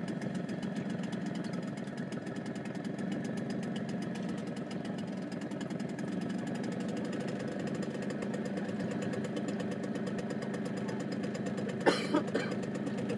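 A small boat's engine running steadily as the boat moves across the water. A few sharp knocks come near the end and are louder than the engine.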